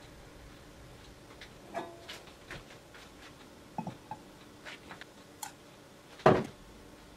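Scattered light clicks and taps of kitchen handling around a frying pan on a gas stove, with one much louder knock a little after six seconds in.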